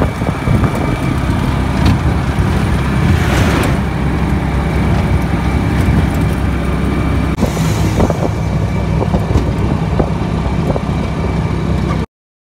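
Motor vehicle engine running steadily with road noise, heard from inside the cab while driving along a highway; a low drone that cuts off suddenly near the end.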